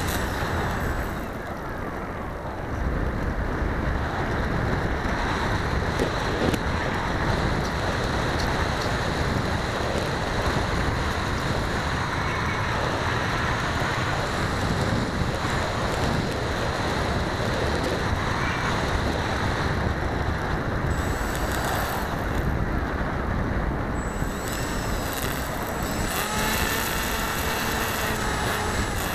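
Steady rushing wind noise buffeting the microphone of a keychain camera riding on a Sky Surfer RC plane in flight. A faint steady whine joins in a few seconds before the end.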